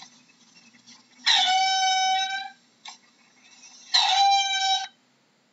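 Mongoose calling twice: two long, steady, high-pitched calls of about a second each, starting abruptly about a second in and again about four seconds in, the second a little shorter.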